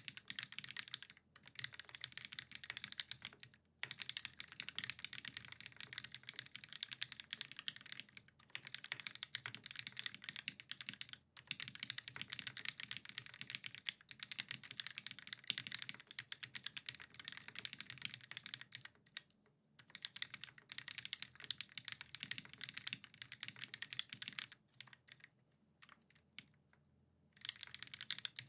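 Fast, continuous typing on a mechanical keyboard with lubed vintage Cherry MX Black linear switches on an aluminium plate and GMK keycaps. The typing stops briefly a few times, and near the end it thins to a few scattered keystrokes before picking up again.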